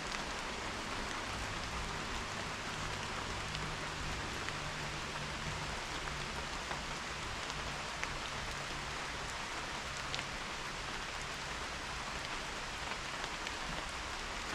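Steady rain falling, with scattered louder drops ticking close by.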